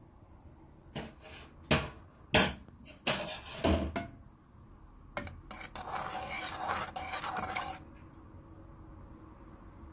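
A spoon knocking and clinking against a metal saucepan several times, the loudest knock about two and a half seconds in. Then about two seconds of scraping as it stirs milk and chocolate around the pan.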